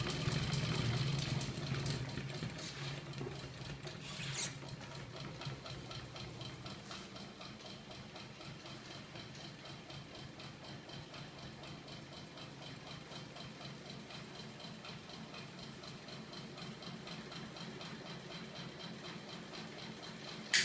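Homemade magnet-motor rig running, its shaft and drum of magnet discs spinning with a steady hum and a fast, even ticking. The hum is strongest for the first couple of seconds and then settles lower. There is a brief squeak about four seconds in and a sharp click at the very end.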